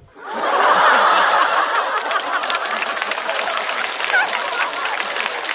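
Studio audience laughing at a stand-up punchline, loudest about a second in, with clapping joining in from about two seconds in.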